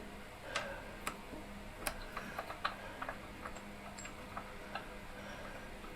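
Irregular light metallic clicks and ticks, a few a second and uneven in spacing, from metal parts and tools being handled on the motorcycle's chain and sprocket.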